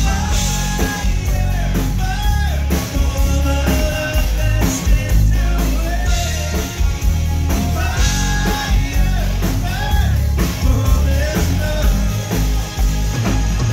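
Live rock band playing a song: a male singer's voice over electric guitar, bass, keyboards and a drum kit.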